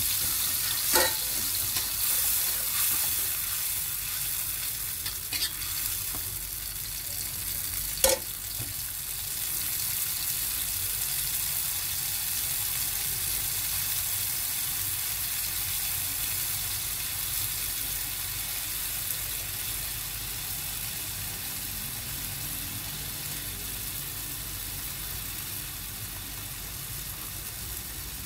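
Blended chili spice paste for sambal petai sizzling steadily as it fries in a wok. A few sharp knocks sound in the first eight seconds, the loudest about eight seconds in.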